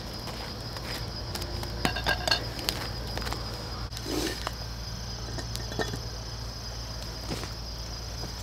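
A steady, high insect trill throughout, with a few sharp metallic clinks of camp cookware about two seconds in and a few small knocks later.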